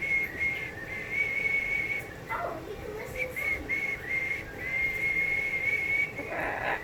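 Cockatoo whistling a learned call: one high, steady note, repeated in short whistles and held for about two seconds near the end.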